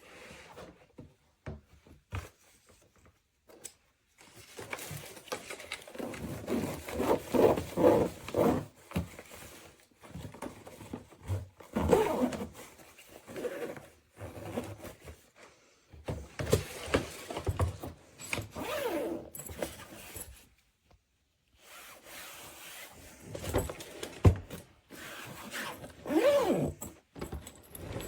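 Hardside suitcase being handled, with zipper pulls, rubbing and scraping coming in irregular bursts and short pauses.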